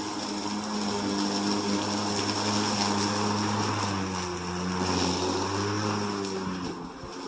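Walk-behind gas lawn mower engine running steadily. Its pitch sags slightly for a couple of seconds past the middle, then comes back up.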